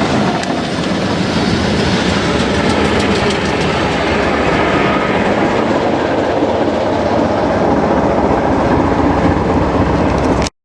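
Class 207 'Thumper' diesel-electric multiple unit running along the line, its English Electric four-cylinder diesel thrumming steadily over the clickety-clack of wheels on rail joints. The sound cuts out abruptly at the very end.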